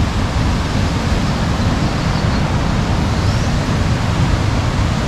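A waterfall rushing steadily: an even, loud wash of falling water, heaviest in the low end.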